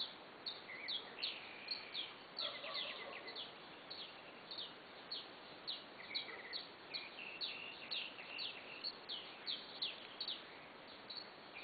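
Nightfall chorus of many small animals calling: short high chirps that sweep downward overlap several times a second, with a few brief held whistles, over a steady background hiss.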